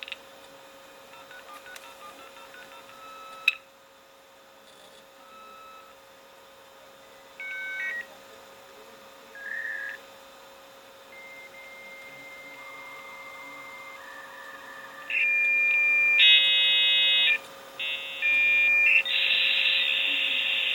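A 56k dial-up modem (Conexant RS56SP PCI) plays its connection sequence through its on-board speaker. It tone-dials a number with a quick run of DTMF beeps, followed by a click. Then come the answer tone and the handshake: single steady whistles, short tone bursts, and then louder layered chords that give way near the end to a loud rushing hiss as the line is trained.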